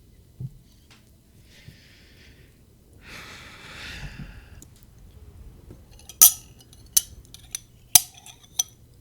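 Cutlery clinking against a dish about five times in the last few seconds, sharp and ringing, as food is scooped up to be fed. Before that, a soft rustling hiss.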